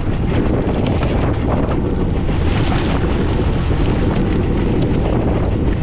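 Wind buffeting the microphone aboard a fishing boat at sea, a steady loud rumble, with a brief rush of hiss about two and a half seconds in.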